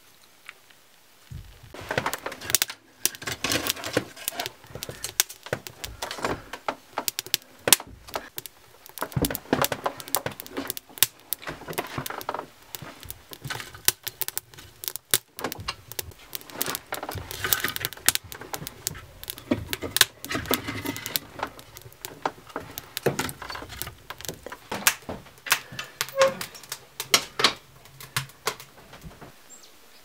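Handling noise: an irregular clatter of knocks and clicks, starting about a second and a half in and stopping shortly before the end.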